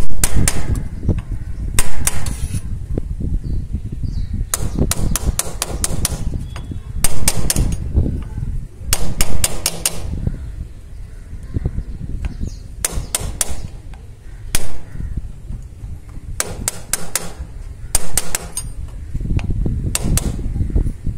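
Steel rod struck with light blows against the magnet coil (stator) plate of a Hero Honda Passion Plus engine: short bursts of several quick ringing metallic taps, about ten bursts with pauses between. The plate is being seated into the crankcase so that its O-ring seals against the engine oil leak.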